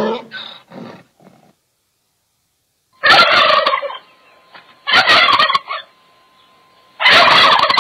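A male turkey gobbles three times, about two seconds apart, each gobble a short rattling burst under a second long. Before them, in the first second, the end of a donkey's bray fades out.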